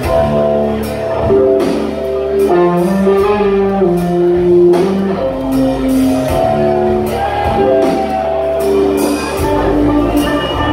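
Live blues-rock band: electric guitar lead with long, bending held notes over drums and bass guitar, heard loud from the audience in a large hall.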